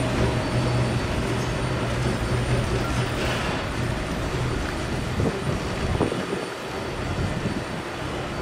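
Vintage SBB passenger coaches rolling slowly past on the track: a steady rumble of wheels on rail with a low hum that fades out about halfway, and a couple of short knocks near the end.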